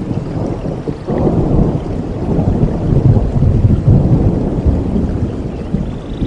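Rolling thunder over steady rain: a low rumble that swells about a second in, peaks midway and slowly fades.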